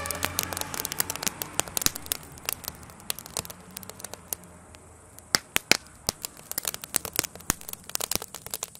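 A burning wooden garden shed crackling and popping: sharp, irregular cracks, several a second, some much louder than the rest.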